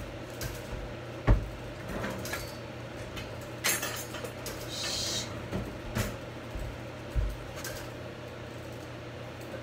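Scattered knocks and clatter of someone moving about a kitchen and handling things at the counter, the loudest knock about a second in, with a short hiss midway. A steady low hum runs underneath.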